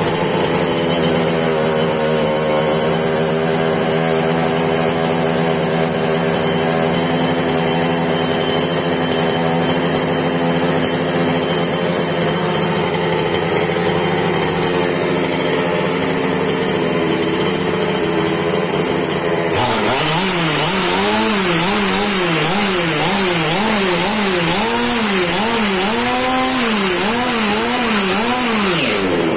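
Losi 5ive-T 2.0's two-stroke gasoline engine idling steadily just after a pull start, choke open, on a rich break-in fuel mix. About two-thirds of the way in, the engine speed starts swinging up and down about once a second.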